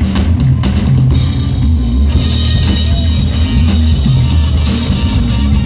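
Rock band playing live: electric guitars, bass guitar and drum kit, heard from within the crowd with a heavy, bass-heavy low end.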